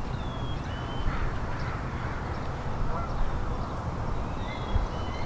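Outdoor ambience of bird calls: short high whistled chirps and a few harsher calls over a steady low rumble.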